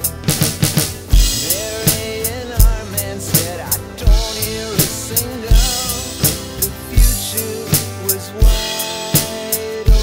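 Rock song with a singing voice, played along on an electronic drum kit: a steady beat of bass drum and snare with cymbal hits.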